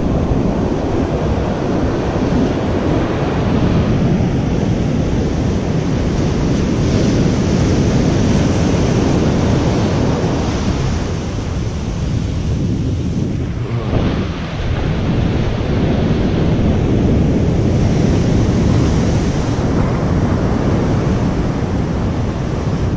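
Heavy ocean surf breaking and washing up the beach, mixed with wind buffeting the microphone.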